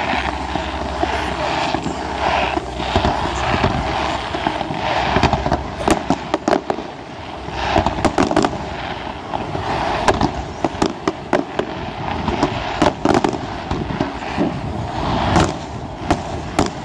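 Fireworks display: aerial shells bursting in a rapid, irregular string of sharp bangs, thickest from about five seconds in, over a continuous crackle and hiss.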